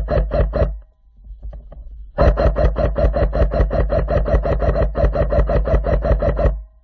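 Airsoft electric gun firing long full-auto bursts at about eight shots a second, stopping a little under a second in and starting again about a second and a half later.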